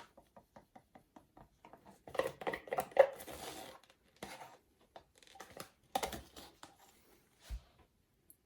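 Plastic paint cups and bottles handled on a tabletop: small clicks and taps, a longer stretch of clattering and rustling a couple of seconds in, another clatter around six seconds, and one low knock near the end.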